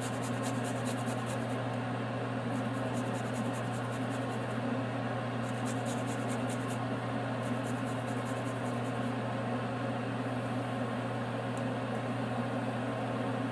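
Garlic cloves rasped on a small metal hand grater in four runs of quick strokes, over a steady low hum.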